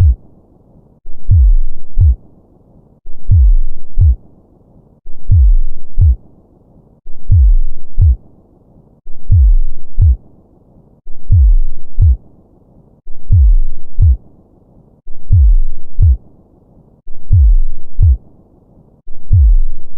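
Heartbeat sound effect: a slow, deep lub-dub double thump repeating evenly about every two seconds, each thump dropping in pitch, over a faint low hiss.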